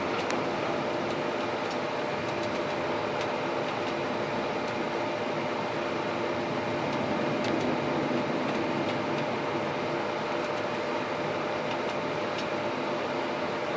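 Steady mechanical hum with a constant low drone and a few faint ticks, holding the same level throughout.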